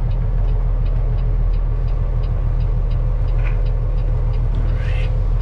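Semi truck's diesel engine running at low speed, a steady low drone heard from inside the cab, with faint quick regular ticking over it.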